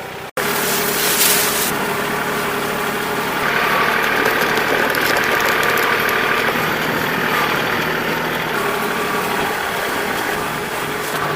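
Kubota L2501 tractor's diesel engine running steadily, after a brief dropout just at the start.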